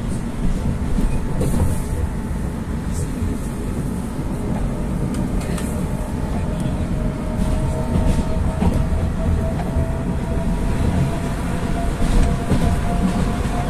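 Running noise heard inside a Rusich metro car: a steady low rumble with scattered wheel clicks, and from about halfway a faint whine that slowly rises in pitch. Near the end another metro train passes on the adjacent track and the noise swells a little.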